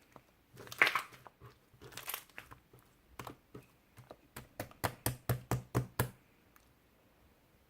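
Pink jelly-like slime being squeezed and pressed by hand: crackly squishing about a second in and again around two seconds, then a run of sharp popping clicks, about three a second, that stops about six seconds in.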